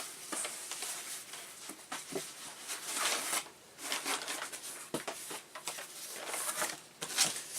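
Irregular rustling and crinkling as packaging and parts are handled, in short bursts with brief pauses.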